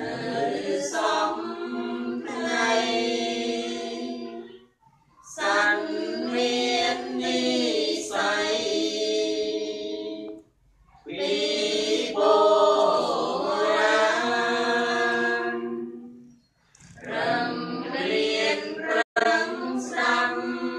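A group of voices chanting Buddhist devotional verses in unison, with no instruments. The chant comes in four long, held phrases, each broken by a short pause for breath.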